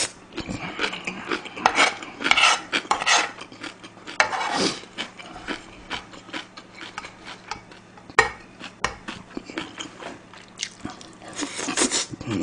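Eating sounds: a spoon clicking and scraping against a nonstick frying pan as fried rice is scooped up, with chewing in between. The sound is a scatter of short irregular clicks and a few brief scrapes.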